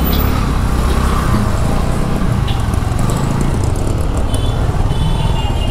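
Steady riding noise from a Honda Dio scooter moving through city traffic: engine and a constant low wind rumble on the camera microphone, with the surrounding traffic around it.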